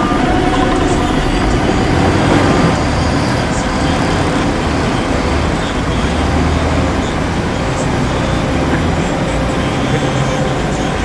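Heavy diesel earthmoving machinery running steadily, a loud continuous engine noise with no pauses.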